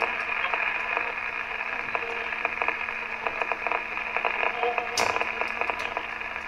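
Radio static: a steady hiss held in a narrow midrange band, full of small crackles, over a low steady hum, with a sharper click about five seconds in.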